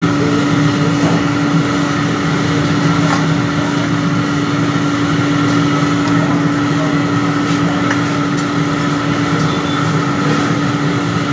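Batter dumplings deep-frying in a large wok of hot oil: a steady sizzle with faint ticks as more batter is dropped in, over a steady mechanical hum.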